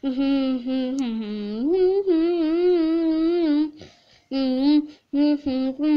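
A child humming a tune with long held notes, in phrases broken by short pauses about four and five seconds in.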